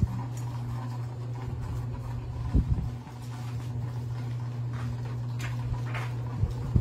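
A steady low hum, with dull thumps about two and a half seconds in and again near the end.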